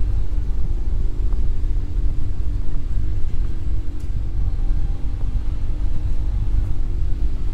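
A vehicle's engine running steadily under a low rumble while driving along a rough dirt track.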